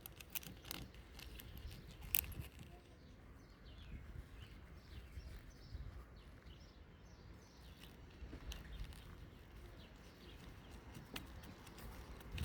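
Faint, scattered small metal clicks and taps of a washer and propeller nut being fitted by hand onto a trolling motor's propeller shaft, with birds chirping in the background.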